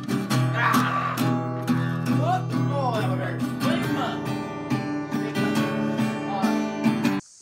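Acoustic guitar strummed in a steady rhythm, full chords ringing on each stroke; it cuts off abruptly near the end.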